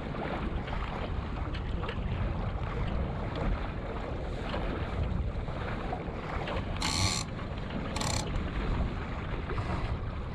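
Wind buffeting the microphone and water washing along the hull of a Flash 165 sailing dinghy under way in a light breeze, with two short hisses about seven and eight seconds in.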